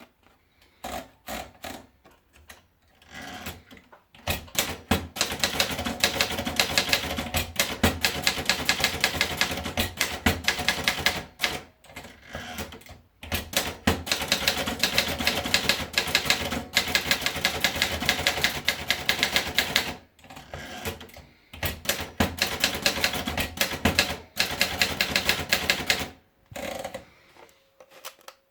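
Remington Elitra typewriter being typed on in quick runs of keystrokes, many clacks a second, broken by short pauses, with a few isolated strokes at the start and near the end.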